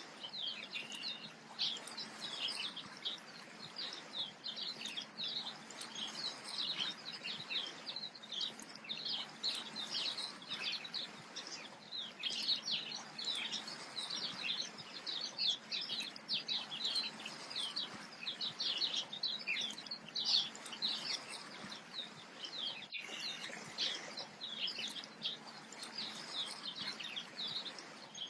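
A busy chorus of small birds chirping and twittering, many quick high calls overlapping without pause, over a steady soft hiss.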